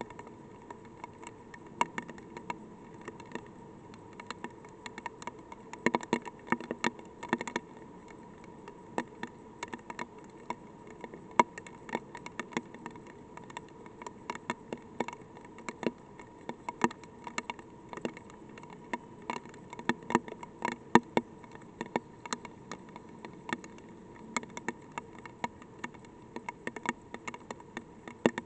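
Light rain: scattered raindrops tapping irregularly on the weather probe close to its microphone, several taps a second of varying loudness, over a steady faint tone.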